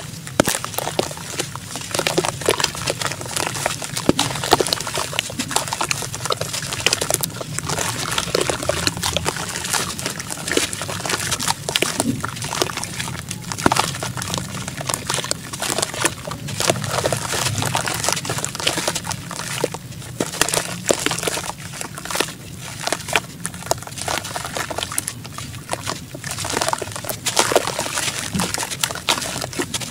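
Wet sand-cement clumps squeezed and crumbled by hand in a plastic tub of water: a steady stream of gritty crackles mixed with water sloshing and splashing.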